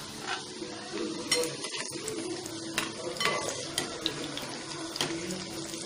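Whole baby potatoes deep-frying in hot oil in a small kadhai, the oil sizzling and bubbling steadily. A few short clicks come from a slotted metal spoon against the pan as the potatoes are stirred.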